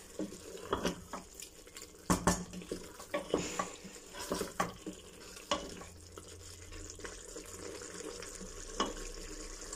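Wooden spoon stirring and scraping potatoes and minced meat around an aluminium pressure cooker, with irregular knocks against the pot, the loudest about two seconds in, over a faint sizzle of the mixture frying in oil. The strokes come less often in the second half.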